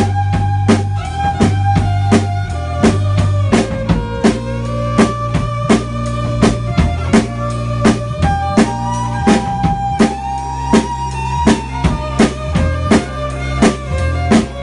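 Live blues instrumental: a Spur semi-acoustic electric violin bows long held notes with short slides between them, over electric bass and a drum kit keeping a steady beat.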